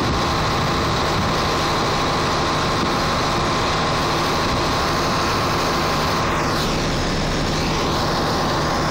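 Heavy vehicle's diesel engine running steadily, with a constant hum under the noise.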